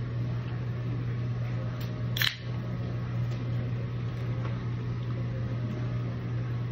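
Steady low hum of a fan, with one sharp click a little over two seconds in.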